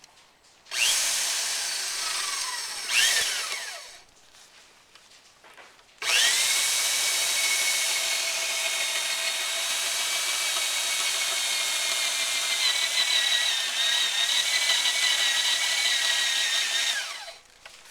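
Electric drill boring into wood, roughing out a mortise with a row of holes. It makes a short run of about three seconds that falls in pitch as it winds down, then after a pause a steady run of about eleven seconds that dips slightly in pitch partway through, then stops.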